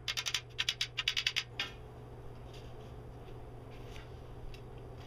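A quick run of about a dozen sharp clinks and taps in under two seconds as a pet-enclosure connector is worked into the top of a pole, then only a few faint ticks.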